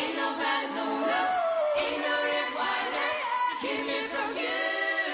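Five-piece young male vocal group singing together in layered harmony, several voices holding and gliding between notes at once.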